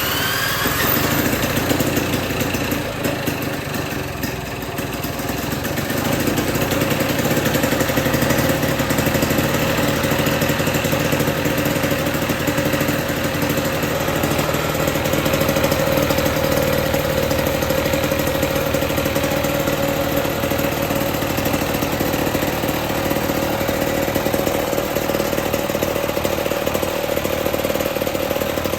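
1955 Lawn-Boy 8F20 two-stroke mower engine, just started on choke with a drill. It picks up speed in the first second and then runs steadily.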